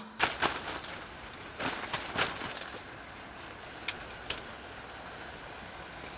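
A handful of light knocks and clicks, bunched in the first few seconds, over a steady outdoor hiss.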